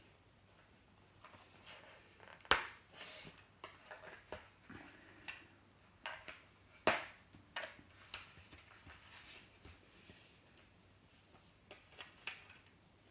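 Koho goalie mask's back plate and its straps being handled and fastened: irregular clicks, taps and rustling, with the sharpest knocks about two and a half and seven seconds in.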